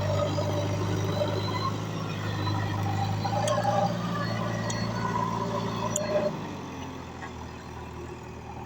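Heavy diesel engine of earthmoving or farm machinery running steadily, then falling away about six seconds in. A few light metallic clicks sound over it.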